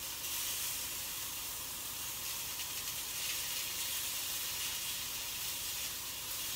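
Dry-aged T-bone steak frying in a pan, a steady sizzle, as it reaches about 48 °C inside.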